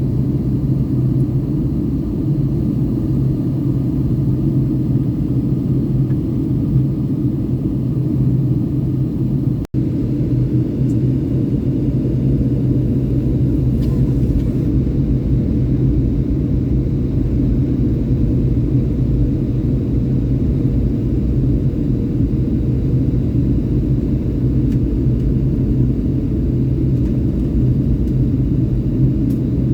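Cabin noise of a Boeing 757-200 airliner on descent: a steady low rumble of airflow and its Rolls-Royce RB211 engines, with an even hum underneath. The sound cuts out for an instant about ten seconds in.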